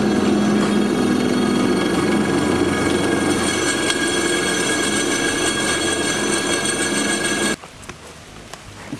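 Drill press running, its bit cutting into a seized steel bolt in an alternator bracket: a steady grinding whine with a low hum. It cuts off suddenly about seven and a half seconds in, leaving a much quieter background.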